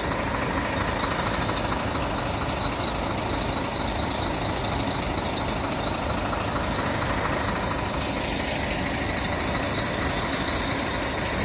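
Diesel engine of a logging truck idling steadily, a constant low rumble with no revving or other change.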